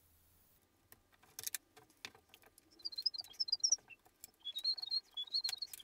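Metal nuts being spun off the bolts of an acrylic-and-circuit-board clock case and set down on a wooden bench: scattered light clicks and taps. A run of short, high, thin chirps comes in the second half.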